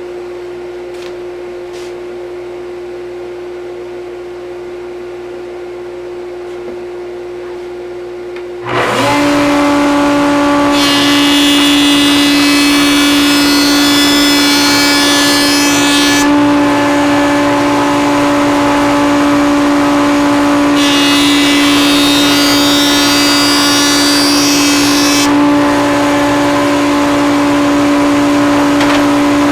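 Router table with a vertical raised-panel bit and shop machinery running with a steady whine. A second, louder machine starts about nine seconds in. Two hissing stretches of about five seconds each follow as the bit cuts passes along the edges of the oak panels.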